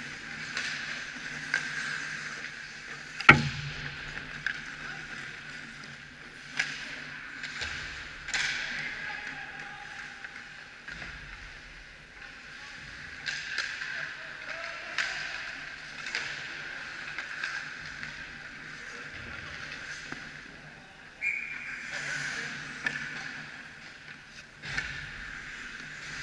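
Ice hockey play picked up by a camera on the goal net: skates scraping the ice and scattered stick and puck clacks, with one sharp, loud crack about three seconds in. A brief referee's whistle sounds about 21 seconds in as play stops.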